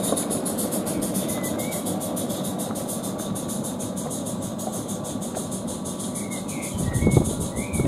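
Garden-railway train rolling past and away: a coal-fired Roundhouse Billy 16mm-scale live-steam locomotive's rapid, even exhaust beats slowly fading, over the clatter of small wagons running on the track. There is a low thump about seven seconds in, and a few short bird chirps.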